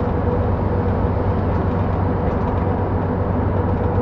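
TU7A narrow-gauge diesel locomotive under way, heard inside its cab: a steady low diesel drone with running noise and a faint steady higher tone above it.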